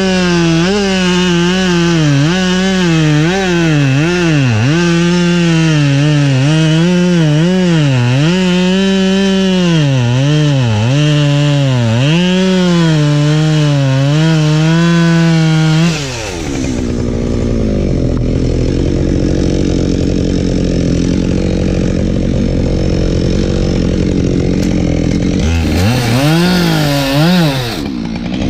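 Husqvarna 572XP two-stroke chainsaw at high revs, its pitch repeatedly dipping and recovering as it bogs under load in the cut. About sixteen seconds in it drops to a rough idle. Near the end it is revved back up and cutting again.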